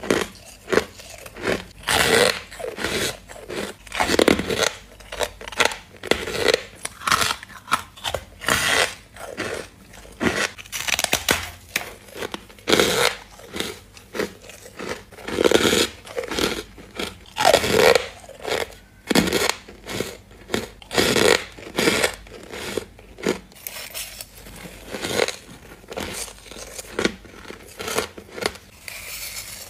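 A person biting and chewing crunchy frozen frost and refrozen ice chunks: a fast, irregular run of crisp crunches.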